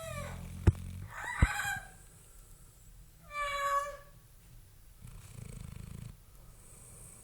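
A sleeping pet snoring: low rumbling breaths, one with a fast fluttering texture about five seconds in, broken by short high-pitched squeaks, the clearest about three and a half seconds in. Two sharp clicks about a second in.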